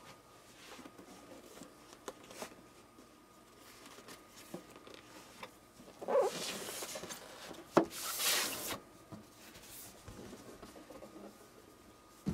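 Cardboard packaging box of a replica lightsaber being handled and opened: scattered light taps and clicks, two short scraping, rustling stretches about six and eight seconds in with a sharp click between them, and a sharp knock at the end.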